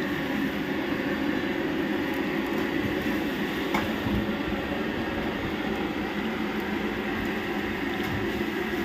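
LPG gas burner running at full flame under a wok of simmering soup: a steady rushing noise. A single sharp click about four seconds in.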